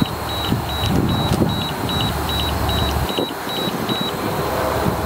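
Bluetooth BBQ meat thermometer's done alarm beeping, about two and a half short high beeps a second, stopping about four seconds in: a probe has reached its set temperature and the pork is done. A steady low rumble runs underneath.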